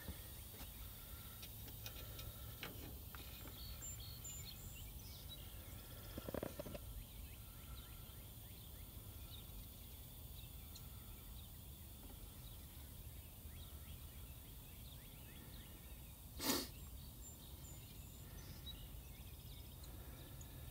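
Quiet outdoor background: a steady low rumble like wind on the microphone, with faint bird chirps. Two brief louder sounds stand out, one about six seconds in and a short sharp one about sixteen seconds in.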